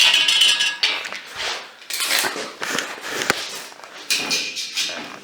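Irregular metal clinks and knocks from steel pipe and tools being handled and set in place.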